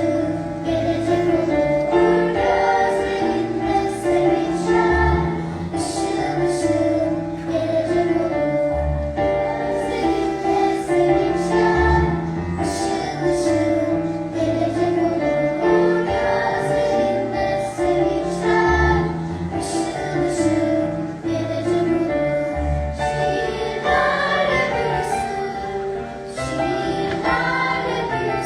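A choir singing in several voices with instrumental accompaniment, holding long notes over a steady bass line.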